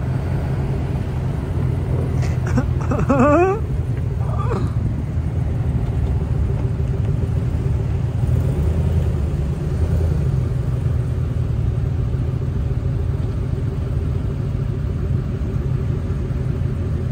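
A lifted 2020 Chevrolet Silverado pickup running with a steady low rumble. About two to three seconds in there is a brief wavering higher-pitched sound.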